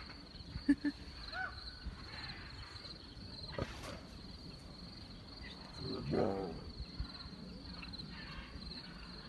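Lion and tigers growling at each other in short bouts: brief growls just under a second in and again about a second and a half in, and a longer, wavering growl about six seconds in.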